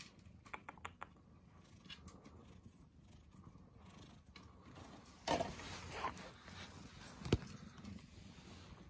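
Grey kitten purring steadily, with a few light clicks, a short rustling noise a little past halfway and one sharp knock shortly after.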